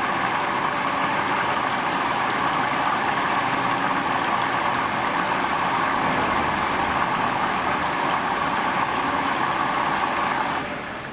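Hoover washing machine filling with water through its inlet valve at the start of a wash: a steady rushing hiss that drops away sharply near the end as the inflow cuts back.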